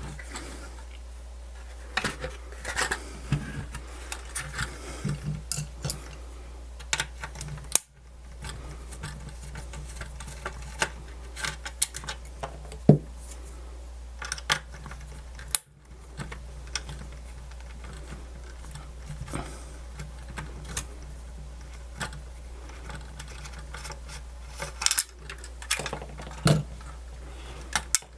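Irregular small clicks, taps and scrapes of a plastic radio casing and its parts being handled and worked loose during disassembly, over a steady low hum. The sound briefly drops out twice.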